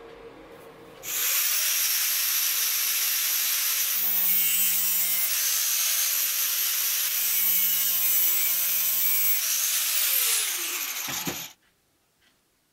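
Small high-speed rotary power tool cutting a slot across the brass piston's pin, running steadily for about ten seconds, then switched off and winding down in pitch before stopping.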